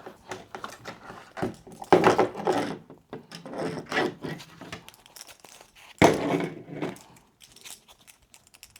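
Parts and tools of an Uhlmann fencing scoring reel clicking, rattling and scraping as the reel is put back together, with two louder clatters about two seconds in and about six seconds in.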